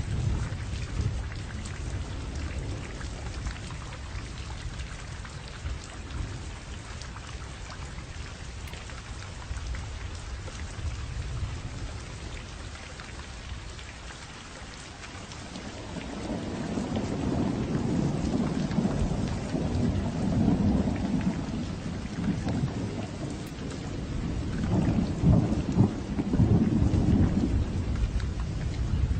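Steady rain falling with rolling thunder: a low rumble in the first half, then a louder rumble that builds about halfway through and swells again near the end.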